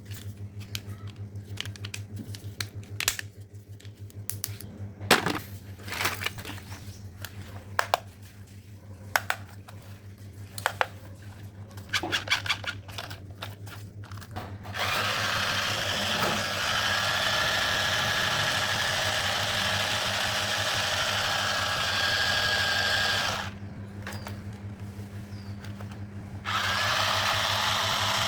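Plastic clicks and taps as small toys are handled. Then a small battery toy motor whirs steadily for about eight seconds, stops, and starts again briefly near the end.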